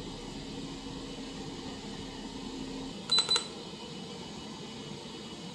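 Steady low hum from the 3D scanning setup that cuts out about three seconds in, followed at once by a quick cluster of short, high electronic beeps.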